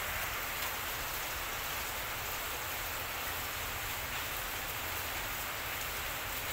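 Steady, even hiss of background noise with a few faint scattered ticks.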